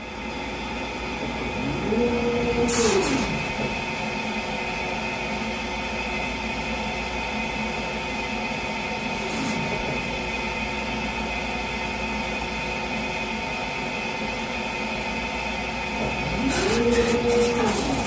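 Laser engraving machine running with a steady hum and a constant high whine while it etches a knob. Twice, about two seconds in and again near the end, a motor whirs up in pitch, holds and winds back down, with a few clicks.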